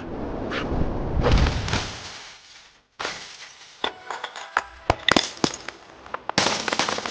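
Crash and clatter of objects being knocked over and breaking. A loud, rumbling crash first, which cuts off to silence almost three seconds in, followed by a rapid run of sharp knocks and snaps and more crashing near the end.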